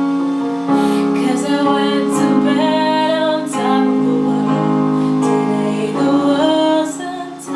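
Music with a female singing voice over piano or keyboard.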